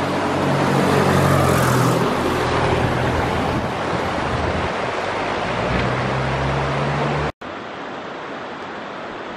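Engine and propeller of a Cub bush plane droning as it passes low overhead, loudest a second or two in and then slowly fading. About seven seconds in the sound cuts off abruptly and a quieter, steady rushing noise follows.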